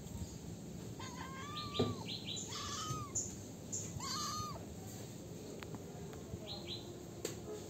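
Kitten meowing three times, each a short mew that rises and falls in pitch, with birds giving brief high chirps in the background.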